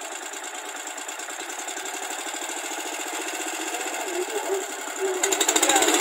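Mini tractor's small air-cooled engine running with a fast, even beat, then revving up and getting louder about five seconds in as the tractor is set moving.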